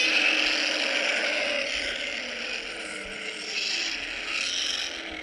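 Custom Godzilla roar sound effect in the Heisei style: one long, harsh roar that breaks in suddenly at full loudness, dips a little mid-way, then swells again.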